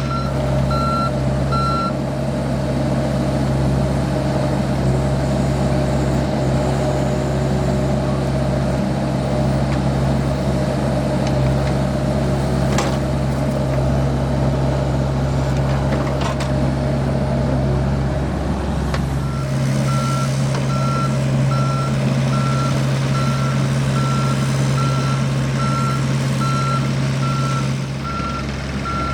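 John Deere 60G compact excavator's diesel engine running steadily, with its alarm beeping about twice a second while it moves. The beeping stops about two seconds in and starts again about two-thirds of the way through, over the unbroken engine drone.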